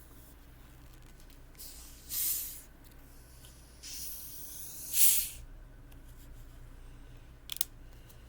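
An orange vanilla seltzer being opened, its carbonation hissing in two short bursts, the louder about five seconds in, followed by a brief sharp click near the end.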